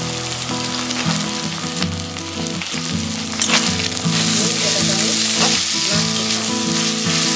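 Drained Gobindobhog rice sizzling as it fries in hot ghee in a steel kadai, stirred and turned with a spatula; the sizzle grows louder about four seconds in.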